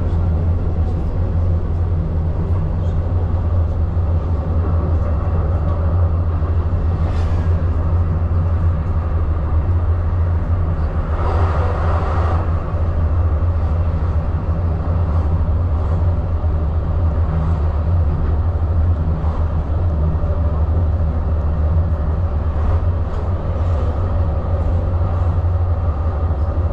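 Prague tram running, heard from inside the car: a steady low hum and rumble of the motors and wheels on the rails. A brief louder rushing noise comes about eleven seconds in.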